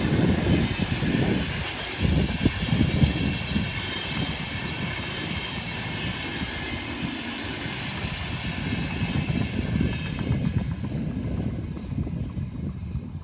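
A train running past on the line: a steady rail rumble with rapid wheel clatter. It is loudest in the first couple of seconds, then holds slightly lower.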